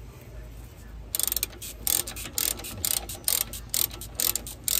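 Ratchet wrench clicking in quick back-and-forth strokes, about three a second, on a brake caliper guide pin bolt, starting about a second in. The guide pin's boot and nut are spinning with the bolt, so it turns without tightening.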